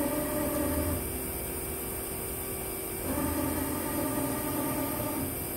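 Hyundai Wia SKT250Y CNC lathe running with a steady machine hum. A motor whine comes in over it twice: once stopping about a second in, and again from about three seconds in to near the end.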